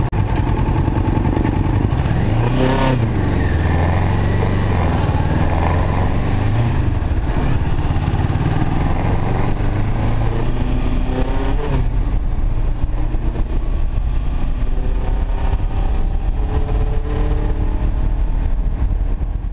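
Kawasaki Ninja 650 parallel-twin engine accelerating from a stop and on through the gears. Its pitch climbs and drops back several times as it shifts up.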